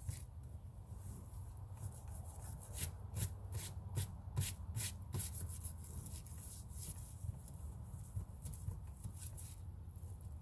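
Hand scrubbing of a yurt window: a run of quick rubbing strokes, thickest a few seconds in and sparser after, over a steady low rumble.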